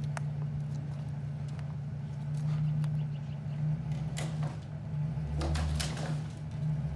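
Box truck engine running steadily while the truck inches forward, dragging its tied-off load of brush out of the cargo box, with a few sharp snaps and crackles of branches. A deeper engine note comes in twice near the end.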